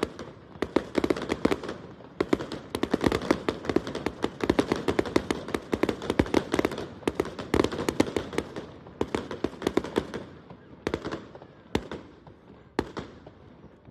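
Fireworks display: a dense, rapid barrage of bangs and crackles. It thins out to a few single bangs over the last few seconds.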